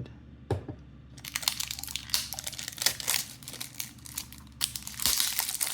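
Packaging crinkling and crackling as it is handled and unwrapped. It starts about a second in and gets louder and denser near the end.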